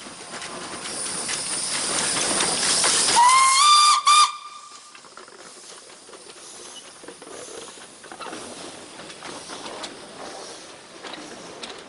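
A passing train's noise builds up, then about three seconds in the train's whistle gives one short high blast. It slides up in pitch as it sounds, with a brief break near its end. The loud noise cuts off suddenly just after, leaving quieter rail noise with scattered clicks.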